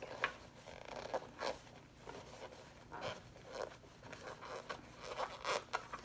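Quilted vinyl bag panel and vinyl connector strap being handled: short, irregular rustles and scrapes of vinyl as the strap is worked through a slit in the panel.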